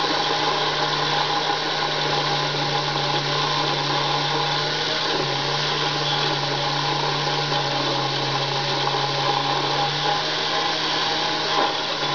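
Unimat SL miniature lathe running steadily, its motor hum and drive whine constant while a copper welding contact tip is turned down under the cutting tool. The hum drops slightly in pitch about five seconds in.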